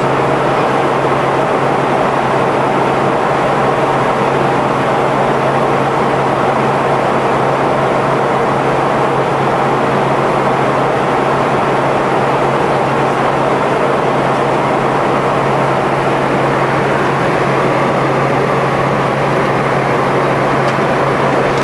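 Steady cabin noise of a Tupolev Tu-134B-3 airliner in flight: the rushing sound of its rear-mounted Soloviev D-30 turbofans and the airflow, over a constant low hum, unchanging throughout.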